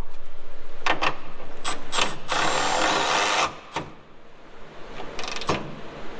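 Impact wrench hammering for about three and a half seconds as it drives the Datsun 510's lower control arm pivot shaft fastening home in the crossmember, then stopping. A few separate clicks and knocks of tools follow.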